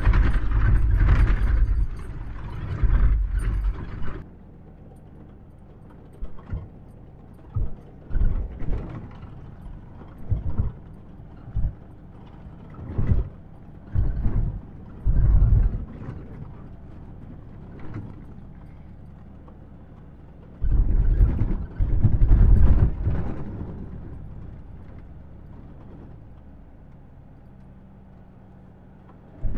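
Pickup truck with a camper shell jolting over a rough desert track: repeated thumps and rattles from the body and load, about one a second, with a loud rumble at the start and a louder stretch of rumbling and knocking about two-thirds of the way through.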